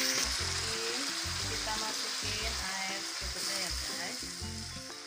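Chicken pieces in spice paste sizzling in hot oil in a wok as they are stir-fried with a spatula, over background music.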